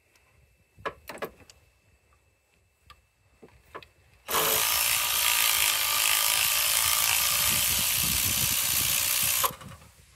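Cordless impact wrench running for about five seconds, backing out a bracket bolt, starting about four seconds in and cutting off sharply. A few light tool clicks come before it.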